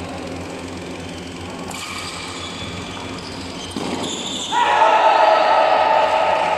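Badminton rally in a sports hall, with a sharp hit about two seconds in, then loud shouting and cheering from about four and a half seconds in as the point ends.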